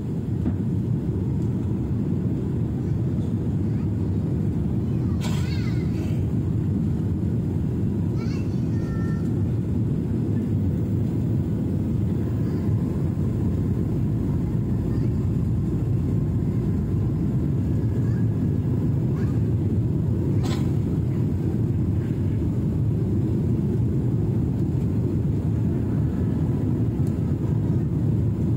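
Steady jet airliner cabin drone, a deep even rumble of engines and airflow heard from a window seat during descent, with two brief clicks, one about five seconds in and one about twenty seconds in.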